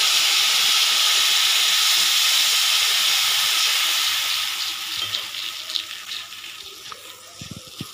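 Tamarind extract hitting hot sesame oil and fried tempering in a steel kadai: a loud, steady sizzle that dies down after about five seconds to a quieter bubbling with scattered pops.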